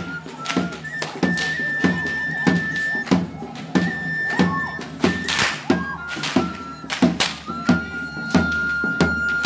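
Pipe-and-drum music of the tlacololero dance: a cane flute plays long held high notes over a hand drum beaten about twice a second. Sharp cracks, the dancers' whips, cut in now and then.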